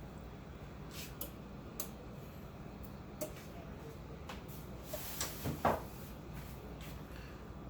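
Light clicks and knocks of kitchen items being handled, with a short cluster of louder knocks and scrapes about five seconds in.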